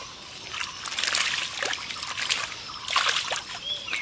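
Hands splashing and sloshing through a shallow muddy puddle in several irregular bursts, groping in the mud for fish.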